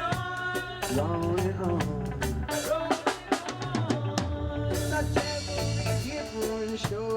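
Reggae-style band music with the drum kit to the fore: snare, rimshot and bass drum hits over a steady bass line and sustained melody, with a busy run of drum hits about three seconds in.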